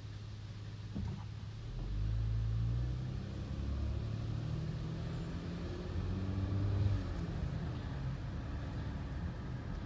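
Diesel engine of a Freightliner 108SD recycling truck with a Labrie Expert 2000 Helping Hand side-loader, idling and then revving up as the truck pulls ahead and swings its automated arm out to a bin, the pitch rising a couple of times and peaking near the end. A short click about a second in.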